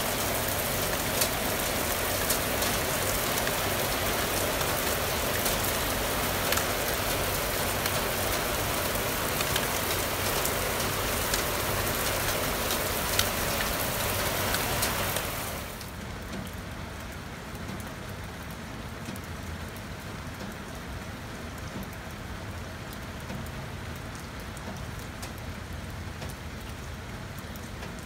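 Heavy rain pouring down, a dense hiss with sharp drop hits scattered through it. About halfway through it turns quieter and muffled, heard from indoors behind a window.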